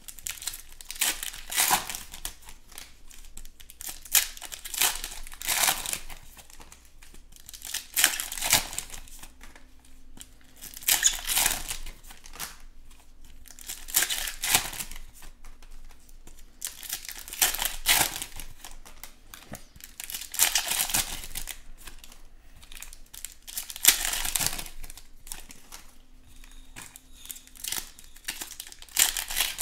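Trading card pack wrappers being torn open and crinkled in the hands, with cards handled between packs. A burst of crinkling comes roughly every two to three seconds.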